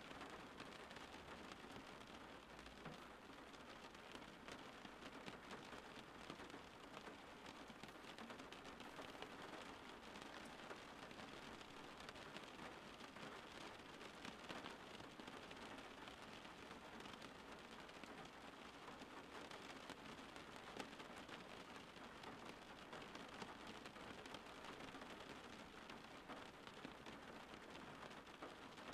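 Faint, steady rain with a fine patter of raindrops, even throughout.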